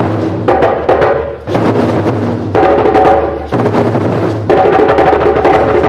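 A group of hand drums struck together in the middle of the heads, giving low tones, in a fast, dense pattern that shifts in phrases about a second long.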